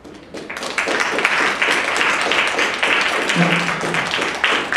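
Audience applauding: a dense patter of many hands clapping that swells within the first second and tapers off near the end.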